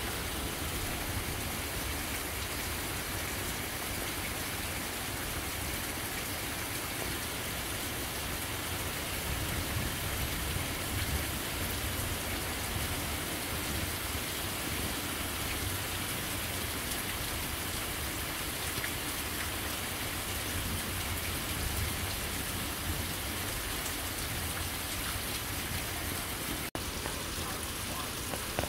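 Steady rain falling in a thunderstorm, an even hiss that cuts out for an instant near the end.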